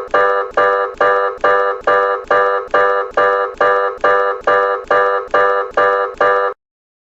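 Electronic emergency alert tone: an organ-like chord beep repeated about twice a second, each beep fading quickly, fifteen or so in a row before it cuts off suddenly near the end.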